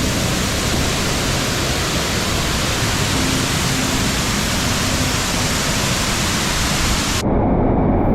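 Loud, steady rush of water falling close by, a waterfall pouring down in a heavy hiss. About seven seconds in, the sound turns duller and deeper.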